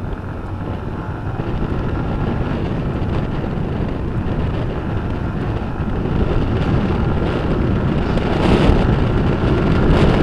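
Wind buffeting an action camera's microphone on a moving motorcycle, mixed with engine and road noise, growing louder in the second half. The foam wind mod on the microphone is torn and patched with tape, so the wind comes through strongly.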